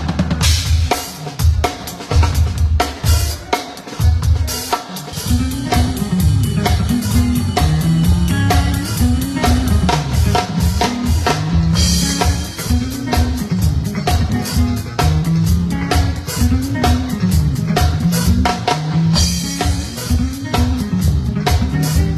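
Drum kit played in a groove: kick, snare and rimshots. A bass line joins about five seconds in, and a crash cymbal rings twice.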